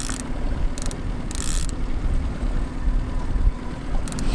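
Steady wind on the microphone over a boat motor's low hum, with a short ratcheting buzz from the fishing reel about a second and a half in as a hooked, heavy fish takes line against the drag.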